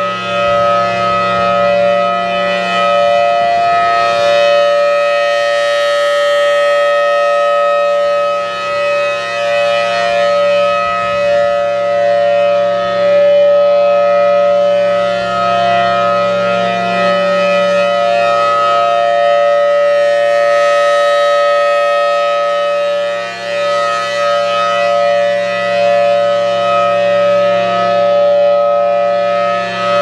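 Federal Signal Thunderbolt 1000T blower-driven rotating siren sounding a steady dual-tone alert: a loud two-note chord held at constant pitch, swelling and fading as the horn turns.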